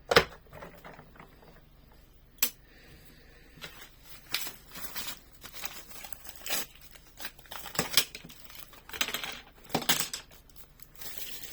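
Toy packaging being handled: a sharp snap at the start, a single click a couple of seconds later, then repeated bursts of rustling and crinkling of plastic and paper.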